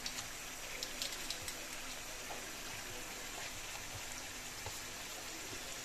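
Chicken pieces sizzling in oil in a frying pan, with a few sharp crackles in the first second and a half.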